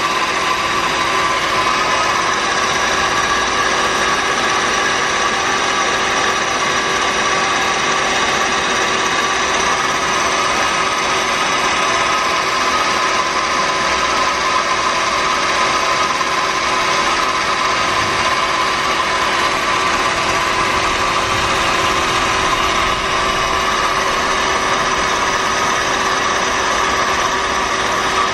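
Citizen M32 Swiss-type CNC automatic lathe running, a steady, even mechanical whine.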